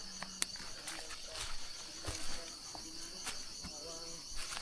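Steady, high-pitched chorus of rainforest insects with a fast pulsing shimmer, over scattered short clicks and crackles.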